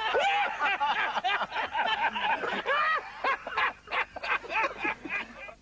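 High-pitched laughter in quick repeated bursts, thinning out and fading near the end.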